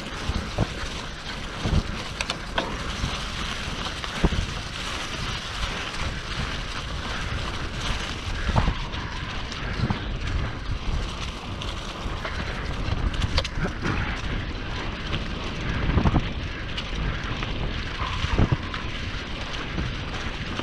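A mountain bike being ridden: steady wind rush on an action camera's microphone with rolling noise, and scattered knocks and rattles from the bike as it goes over bumps.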